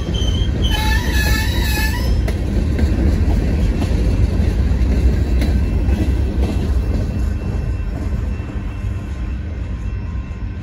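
Covered hopper cars of a freight train rolling past with a steady rumble and rattle of wheels on rail. High-pitched wheel squeal sounds for the first couple of seconds. The rumble fades near the end as the last car passes.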